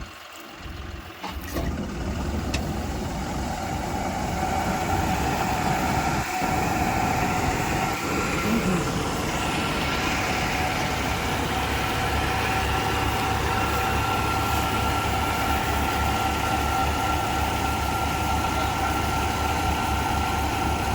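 John Deere combine harvester running steadily: a low engine drone with a steady high whine over it, coming up loud about a second and a half in.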